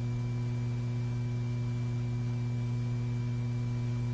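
Steady electrical hum with a faint high whine, unchanging throughout: the background hum of an old film soundtrack, with no other sound.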